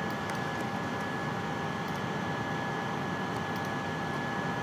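Steady background hiss with two faint, steady high whines running through it, and a few faint short clicks.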